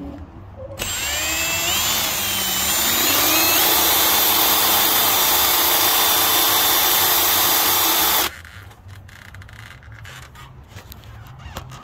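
Power drill with a gold twist bit drilling out a corroded screw in a bus marker-light housing. The motor whine rises as it spins up about a second in, runs steady, and cuts off suddenly about eight seconds in.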